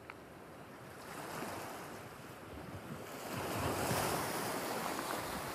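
Sea waves washing in with wind, a steady rushing noise that fades in from silence and swells twice.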